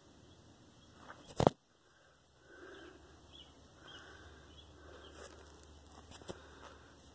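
A sharp knock about a second and a half in, the loudest sound, then faint scuffing and rustling with a smaller click near the end: handling noise from a phone camera being moved about while someone shifts on the dirt floor of a crawlspace.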